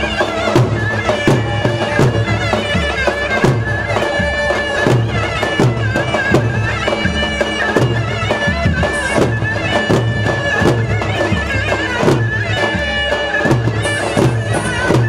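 Loud Turkish folk dance music for a Halebi halay: a wavering melody over a held tone, driven by a regular deep drum beat about one and a half beats a second.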